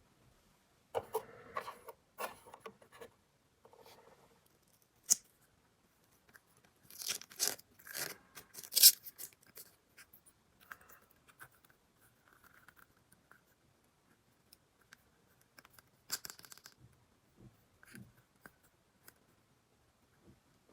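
Hands unpacking miniature plastic toy parts and their packaging: scattered rustles and small clicks, with a louder burst of rustling about seven to nine seconds in and another around sixteen seconds.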